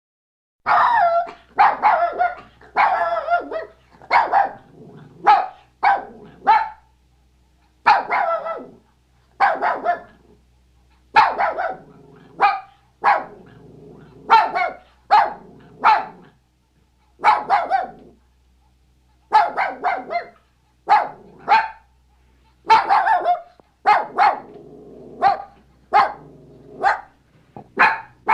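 A dog barking over and over, starting about half a second in, in single barks and quick runs of two or three.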